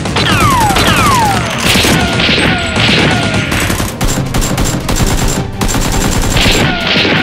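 Gunfire sound effects: rapid shots with several falling whistles, like ricochets.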